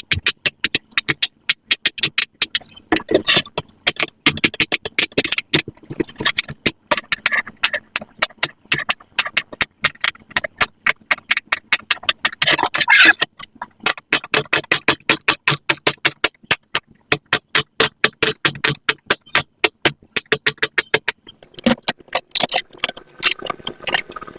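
Silicone pop-it fidget toys being popped bubble by bubble: a fast, steady run of sharp little pops, about five a second.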